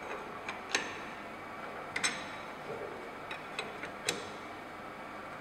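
Sharp metallic clicks and knocks of a chuck key turning the cam lock screws on a centre lathe's spindle nose, locking a three-jaw chuck in place; about half a dozen separate clicks, irregularly spaced, the loudest about two and four seconds in.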